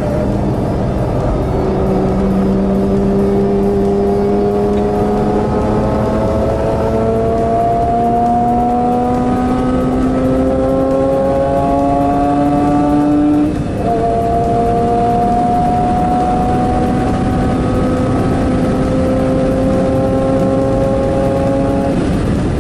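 Mazda RX-8's two-rotor 13B Renesis rotary engine under hard acceleration, heard from inside the cabin. Its pitch climbs slowly, drops at an upshift a little past halfway, then climbs again.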